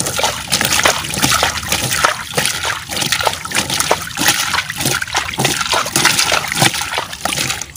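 Water splashed over and over onto a plastic toy dump truck's raised bed to rinse the sand off, running off and splashing into shallow water, in uneven surges.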